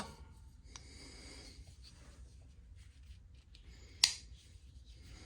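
A folding pocket knife being handled: faint rustling, then one sharp click about four seconds in.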